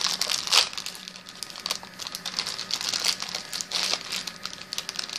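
Foil blind-bag wrapper of a Funko Mystery Mini crinkling and crackling in the hands as it is squeezed and opened, with the sharpest burst of crackle about half a second in.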